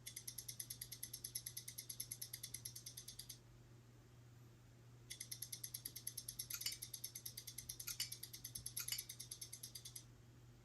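Huawei Nova 3i smartphone sounding a clock-app alert tone: rapid high-pitched beeping, about ten pulses a second, in two bursts with a pause of almost two seconds between them. A few sharp clicks fall in the second burst.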